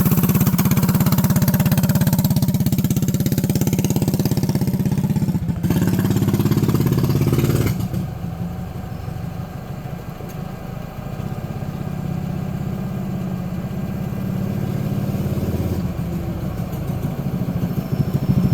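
Predator 212cc single-cylinder four-stroke engine on a mini bike running under throttle on a test run after a split kill-switch wire was repaired. It is loud and steady at first, its pitch shifting a few seconds in, then drops suddenly to a quieter, lower running about eight seconds in, and rises again near the end.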